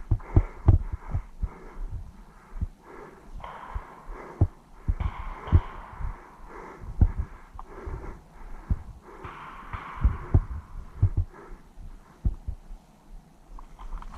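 Heavy breathing close to the microphone, several long breaths, over irregular low thuds such as footsteps and gear knocking while moving.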